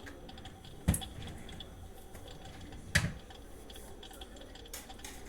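Two sharp clicks about two seconds apart, over faint, irregular light ticking.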